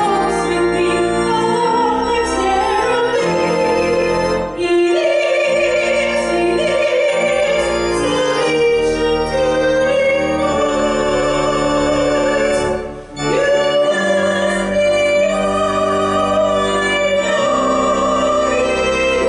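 A solo woman's voice singing a hymn with vibrato, accompanied by sustained organ chords, the phrases broken by short breaths about 4.5 and 13 seconds in.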